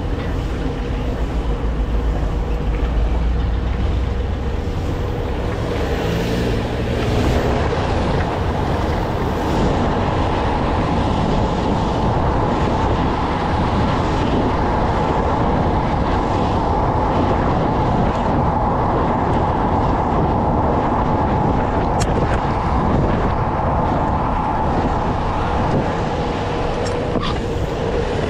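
Road and wind noise rushing past a camera carried fast just above rough concrete pavement, with a faint steady whine underneath that steps up in pitch about seven seconds in.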